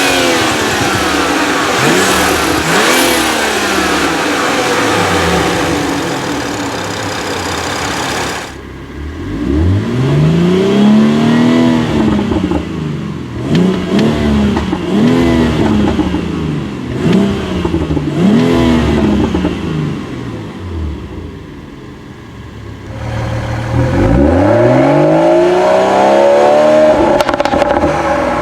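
2018 BMW X3 M40i's turbocharged 3.0-litre inline-six free-revving while parked, in a run of quick blips that each rise and fall back. The sound changes abruptly twice as the listening spot changes, and near the end a rev rises and is held high for a few seconds.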